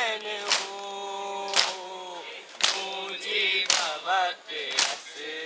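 Men's voices chanting a nauha, a Muharram lament, holding long drawn-out notes. Sharp slaps land in steady time about once a second: matam, mourners beating their chests in unison to the lament.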